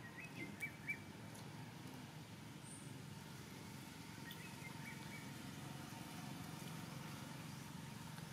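Quiet outdoor ambience: low, steady background noise with a few short high chirps, a cluster near the start and another about four seconds in.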